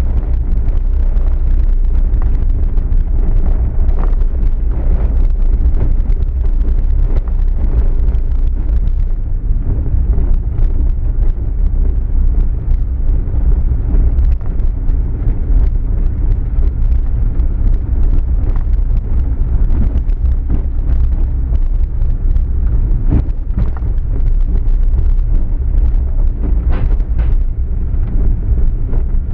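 Car driving along a narrow road: a steady low rumble of road and wind noise on the microphone, with a few short knocks from bumps along the way.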